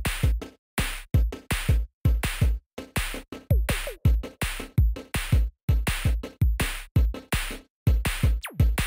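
Electronic background music: a drum-machine beat of deep kick drums and crisp hits, chopped into short stop-start bursts with brief silent gaps between them.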